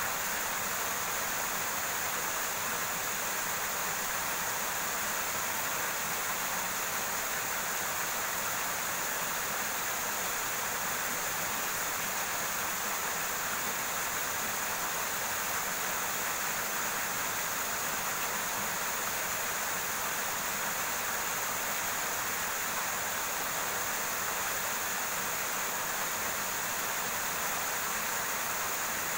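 River water rushing steadily over rocks, an even hiss with no breaks.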